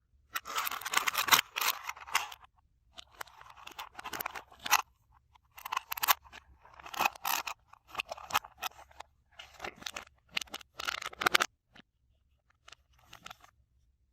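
Slime-making materials being handled, heard as repeated bursts of crackling, rustling noise made of many small clicks. The bursts come in short groups with brief pauses and thin out to a few faint ticks near the end.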